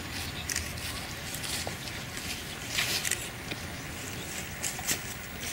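Shuffling footsteps and brief rustles of clothing and a flower wreath being handled and set down on stone steps, over a steady background hiss.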